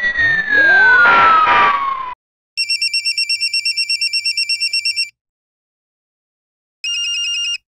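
A fire engine siren falls in pitch and cuts off about two seconds in. After a short gap comes a trilling telephone ring lasting about two and a half seconds, then a pause and a second, shorter ring near the end.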